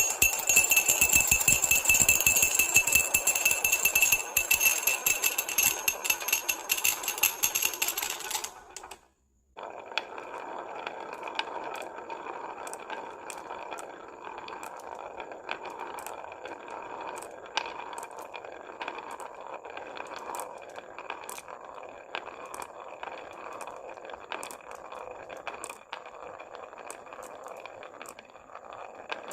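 Many glass marbles rolling and clattering down a wooden marble run. There is a loud, dense rattle of clicks for about eight seconds, then a brief cut to silence, then a quieter steady rolling sound with scattered clicks.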